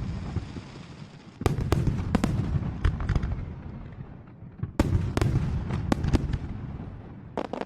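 Fireworks display: rapid volleys of shell bursts and crackle, with fresh barrages starting about a second and a half in and again near five seconds, the rumble dying down between them.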